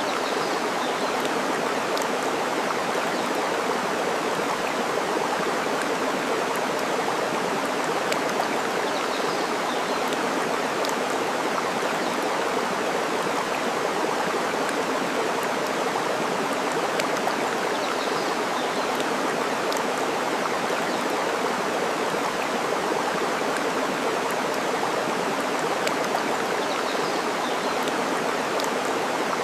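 Steady rushing of flowing water, with a few faint, sharp crackles from a burning wood fire scattered through it.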